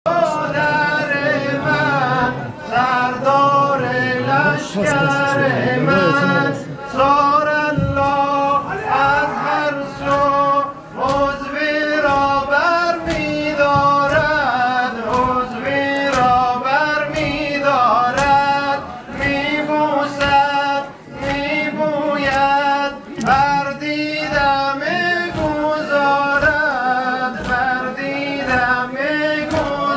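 A man chanting a noha, a Shia mourning lament for Abbas, in long wavering sung phrases. The crowd beats time under it in steady strokes, the mourners' chest-beating (matam).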